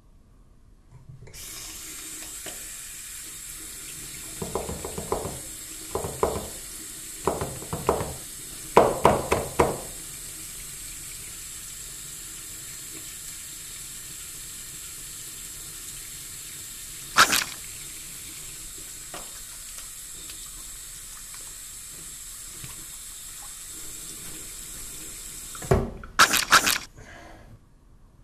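Bathroom faucet running steadily into a sink while hands are washed under the stream, with splashes in the first ten seconds and a single sharp click midway. The water shuts off abruptly near the end, followed by a few loud knocks and splashes.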